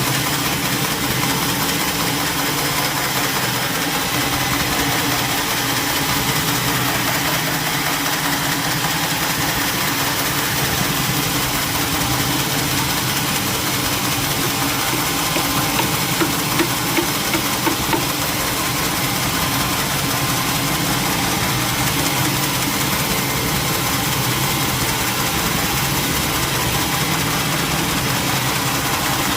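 Sawmill engine running steadily at an even speed, with a few brief knocks about 16 to 18 seconds in.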